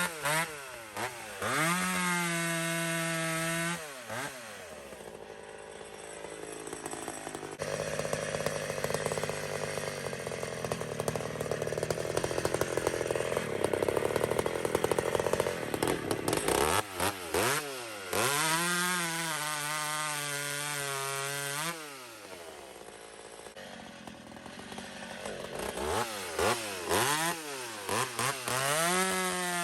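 Two-stroke chainsaw revving up to full throttle and dropping back, three times. About 8 seconds in it bogs into a long, rough stretch of cutting through wood under load, with a freshly hand-filed chain.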